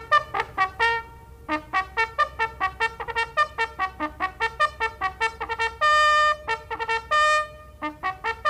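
Herald's trumpet fanfare announcing a king's entrance: a quick run of short, detached notes, with two longer held notes about two-thirds of the way through.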